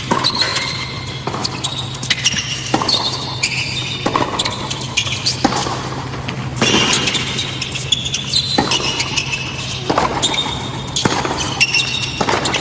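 A baseline tennis rally: rackets strike the ball about ten times, a little over a second apart, with high squeaks of players' shoes on the hard court between the shots.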